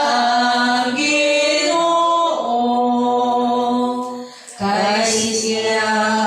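Voices singing the Cebuano responsorial psalm refrain a cappella, in long held notes, with a short break for breath about four and a half seconds in.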